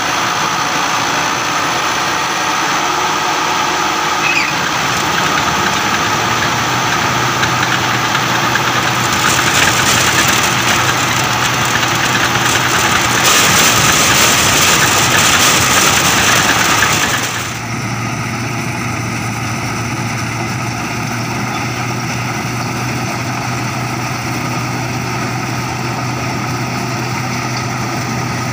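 Crown MCH PJ-2000 Star combine harvester running steadily while cutting and threshing corn stalks, heard close from the operator's seat. It grows louder and noisier from about nine seconds in, then drops back a little about seventeen seconds in and stays steady.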